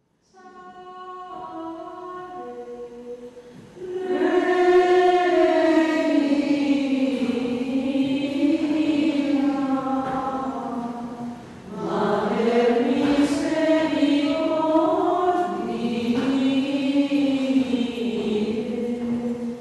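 A choir chanting a slow, flowing sacred melody. A softer phrase of held notes opens it, and the full choir comes in louder about four seconds in, with a brief pause near the middle.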